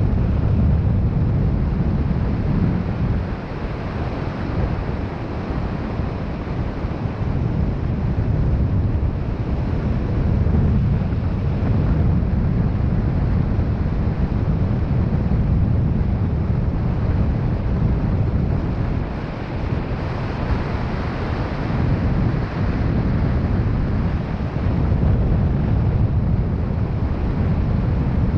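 Wind buffeting the camera microphone: a steady low rumble of rushing air that swells and eases gently.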